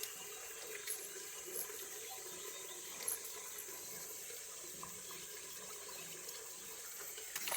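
Steady trickle of running water, with a constant high hiss above it and a few faint clicks.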